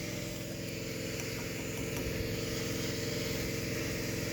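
A steady, even electrical hum with a buzzing edge and no change in pitch or level.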